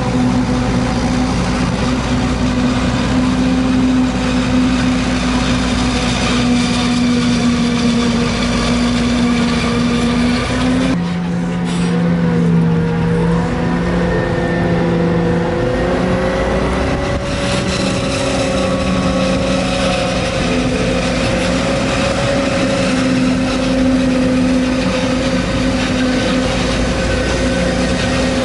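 Diesel engines of a forage harvester and tractors working during maize chopping, a loud steady drone of several held pitches. The sound changes abruptly about eleven seconds in, with a slightly wavering tone after the change.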